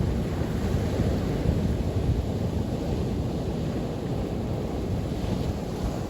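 Ocean surf breaking and washing on a beach: a steady, loud rush, with a low rumble of wind on the microphone.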